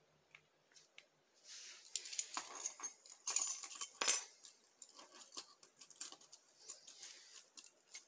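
A large bunch of keys jangling in a hand and being set down on the floor, loudest from about one and a half to four seconds in, then lighter scattered clinks.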